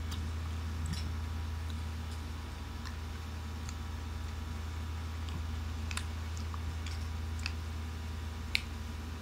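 Metal spoon clicking against a ceramic bowl while stirring and scooping creamy fruit salad: a few scattered light clicks, the sharpest one near the end, over a steady low hum.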